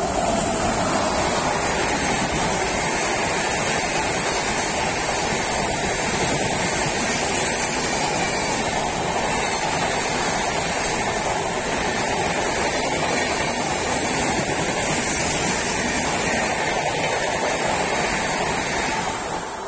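An express train hauled by an electric locomotive passing at speed without stopping: a loud, steady rush of wheels on rails as the coaches go by, dropping away near the end as the last coach clears.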